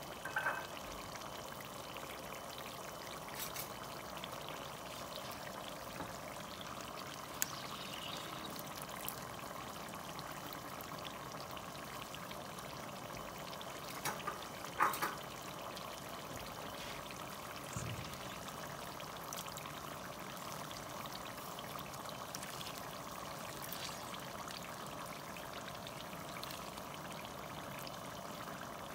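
Butter sauce simmering in a pot, a steady bubbling, with a few short clicks, the loudest a pair about halfway through.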